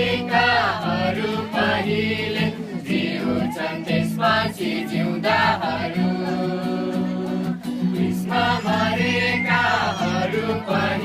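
Music: a choir singing a Nepali Christian gospel song over a steady held accompaniment.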